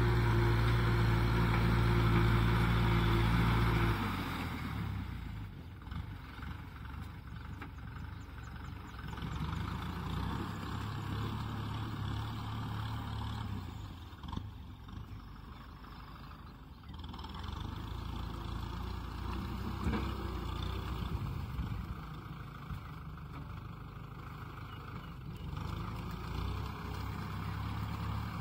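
Tractor diesel engine running under load while working a muddy field: a loud, steady hum for about the first four seconds, then quieter and rougher, rising and falling through the rest.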